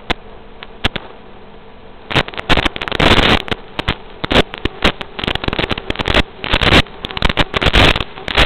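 Static from an analog FPV video link's audio channel: a steady hiss, then from about two seconds in, irregular loud crackles and short bursts of noise as the radio signal weakens.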